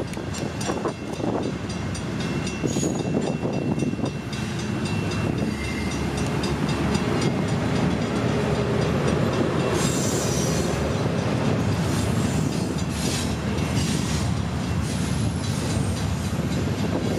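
Double-stack intermodal container train passing at close range: a steady rumble and clatter of steel wheels on rail, with regular clicking and a few faint, brief high squeals in the first half.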